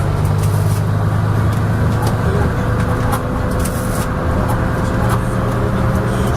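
Leyland Atlantean double-decker bus engine running steadily under way, with scattered light clanks and rattles. A thin steady whine joins about two seconds in.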